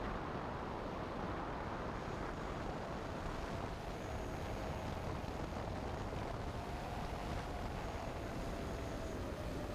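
Steady hum of a camera drone's motors and propellers mixed with wind noise, with a faint whine that wavers slightly in pitch.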